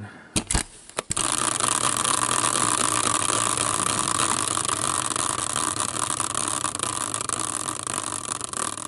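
Small tabletop prize wheel, spun by hand about a second in, spinning on its stand with a rapid, steady rattle that slowly gets quieter as it runs down. A few handling clicks come just before it starts.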